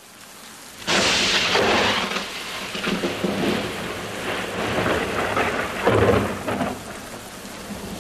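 Thunderstorm: rain hissing steadily, with a sudden loud crack of thunder about a second in and another loud burst of thunder with a low rumble about six seconds in, fading out near the end.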